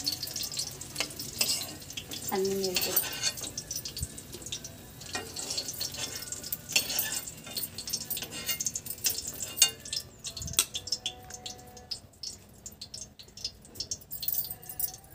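Green chillies sizzling in hot oil in a metal kadai while a metal spoon scrapes and clicks against the pan, lifting them out. The gas has just been turned off, and the sizzle dies down after about ten seconds, leaving scattered spoon clicks.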